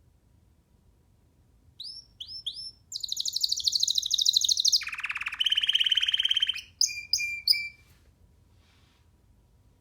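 Young domestic canary singing one song phrase about two seconds in: three quick rising whistled notes, a fast high trill, a lower fast trill, then three more short notes, after which it falls quiet.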